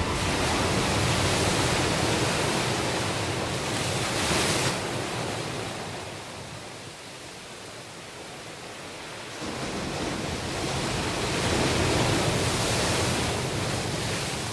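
Soundtrack rush of noise like surf or wind, with no melody: it swells, sinks lower around the middle, rises again a little after halfway, and starts to fade out at the very end.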